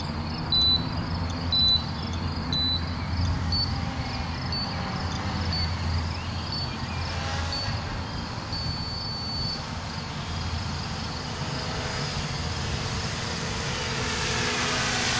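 FPV quadcopter's electric motors and propellers buzzing steadily in flight, growing louder over the last few seconds.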